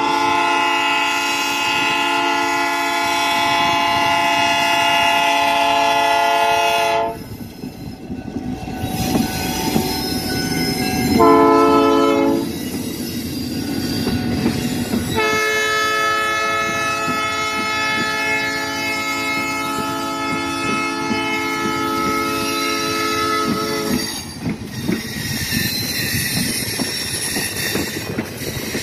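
EMD F7 diesel locomotive's multi-note air horn blowing a long blast, a short one and another long one, over the steady rumble and clatter of freight car wheels rolling past on the rails. After the horn stops, the wheel noise carries on, with some high wheel squeal.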